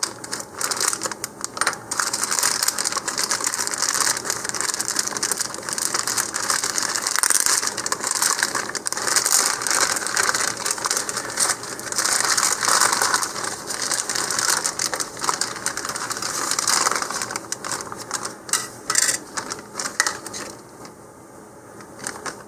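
Thin clear plastic bag crinkling and rustling with many small crackles as hands pull it open and slide the model rocket parts out; it eases off near the end.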